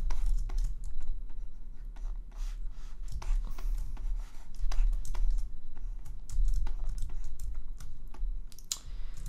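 Computer keyboard keys and other desk input clicks, tapped irregularly and scattered, over a steady low electrical hum.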